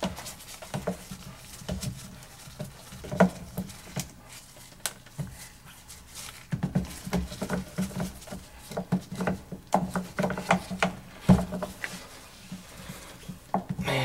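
Irregular small clicks, creaks and knocks of a gloved hand working a white PVC drain fitting loose from an air handler's drain pan, twisting it out. The handling gets busier in the second half.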